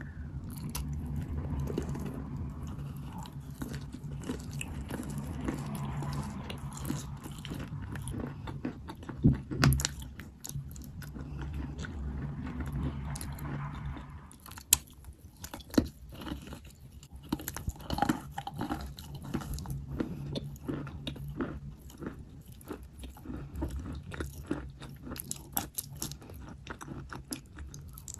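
Wet white chalk being bitten and chewed close to the microphone. Dense, soft, mushy crunching for roughly the first half gives way to sharper, separate crunches and clicks.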